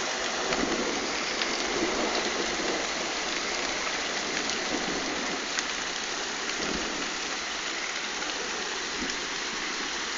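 Heavy hail pelting down: a dense, steady hiss of hailstones striking, with a few sharper ticks standing out.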